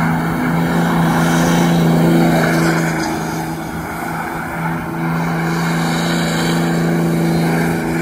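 Diesel pickup truck doing a burnout: the engine is held at high, steady revs while the rear tires spin on the pavement.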